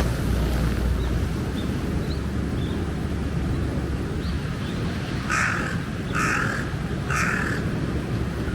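A crow cawing three times, about a second apart, over a steady low rumble.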